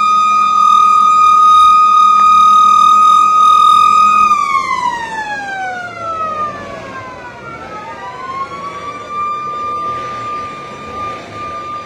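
Emergency-vehicle siren holding one high steady tone, then about four seconds in it falls in pitch, climbs back up and holds steady again, less loud than at first.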